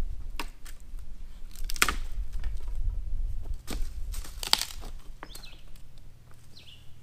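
Wind buffeting the microphone, which has no windscreen, dying down about five seconds in, with crunching footsteps on dry leaves and loose rock. A bird chirps briefly twice near the end.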